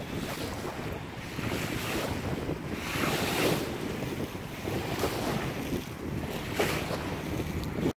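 Wind buffeting the microphone over choppy harbour water lapping, in gusts that swell and fade, the strongest about three seconds in. It cuts off suddenly at the end.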